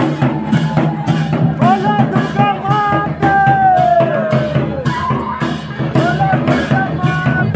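Loud dance music with a fast steady beat, about three strokes a second, under a sung melody, with crowd voices behind it.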